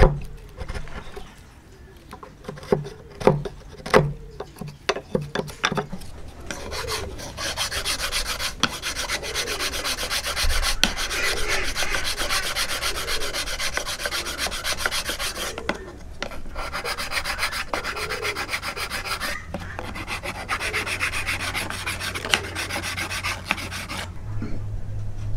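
A wood chisel paring out a notch in hardwood, giving a few sharp clicks and cracks over the first few seconds. Then a flat file is worked back and forth across the end grain of a wooden block: a steady rasping in repeated strokes, with a short pause partway through.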